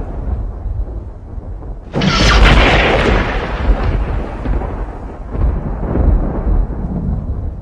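Thunder. A low rumble is fading when a sharp thunderclap breaks about two seconds in. It rolls on as a long, fading rumble, with a deeper swell near the end.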